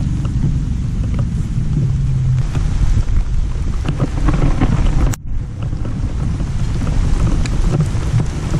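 Wind buffeting the microphone of a camera on an open boat deck, a steady low rumble, with scattered small taps of rain. The sound cuts out for an instant about five seconds in.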